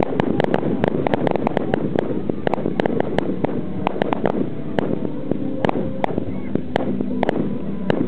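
Aerial fireworks display: a rapid, irregular string of sharp bangs and cracks from bursting shells, several a second throughout, over a dense background rumble.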